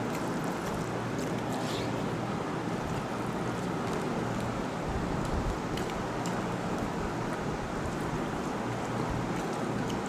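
Steady rushing background noise with faint, scattered clicks and taps of people eating from plates.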